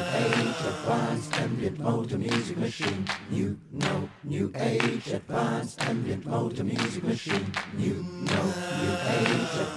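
A choir of voices singing a cappella, pitches shifting through the passage.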